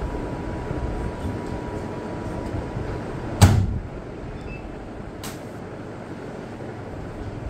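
A single sharp knock about halfway through, with a short ringing tail, then a lighter click a couple of seconds later, over a steady low rumble.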